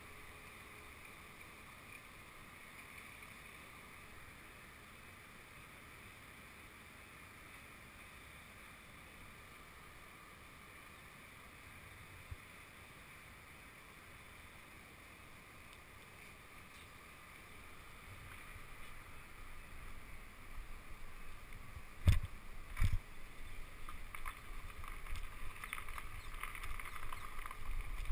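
Faint steady background hum. From about two-thirds of the way through, a bicycle with the camera mounted on it rumbles and rattles as it rolls over a gravel terrace. Two sharp knocks come close together about three-quarters of the way through and are the loudest sounds.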